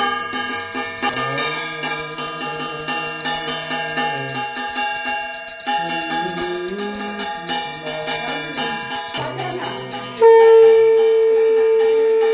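Small puja hand bell rung rapidly and continuously during an aarti lamp offering, over melodic music. About ten seconds in, a loud steady tone joins and holds for about three seconds.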